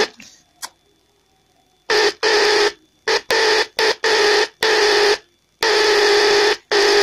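Loudspeaker of a homemade 6283-IC audio amplifier, run from a 9 V battery, giving loud bursts of buzzing noise that switch on and off abruptly, about eight times, while its 3.5 mm input plug is handled unconnected. The bursts begin about two seconds in, after a single faint click.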